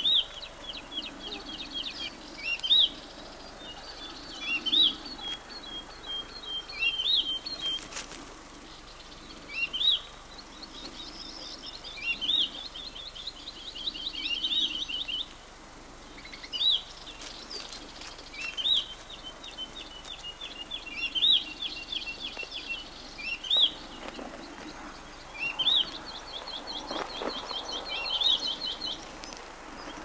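A songbird singing the same short phrase over and over, every two to three seconds: a sharp rising note followed by a quick run of high notes.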